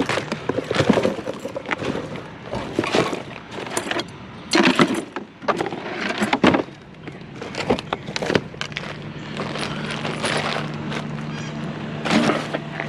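Irregular clattering and knocking of loose curbside scrap being picked through and handled. A steady low hum comes in about nine seconds in.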